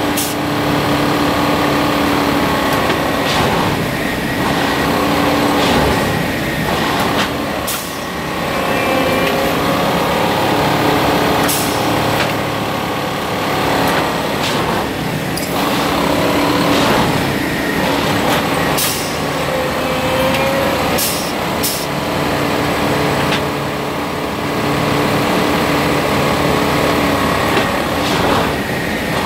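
Heavy railway track-maintenance machine working: its engine runs steadily under load, with short hisses of air every few seconds.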